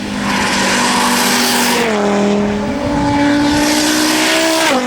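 Audi quattro race car's turbocharged five-cylinder engine at full throttle, pulling up through the gears with the pitch climbing and dropping at two upshifts, about two seconds in and near the end.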